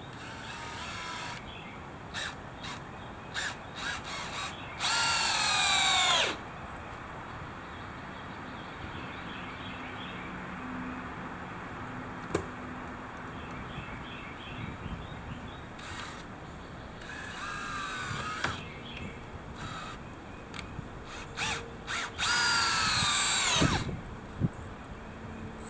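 Power drill driving screws into wood framing in several runs: short trigger blips, then two longer runs of about a second and a half each in which the motor's pitch falls as the screw pulls in.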